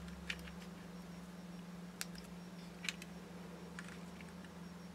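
A few faint clicks and ticks of fingers handling a plastic model kit while pressing a small stencil piece onto it, heard three times over a steady low hum.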